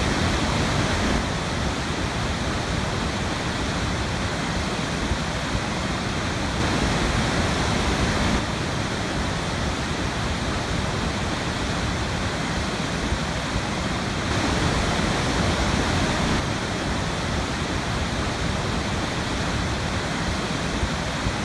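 Waterfall on a river: steady rushing water, a little louder for a second or two every seven seconds or so.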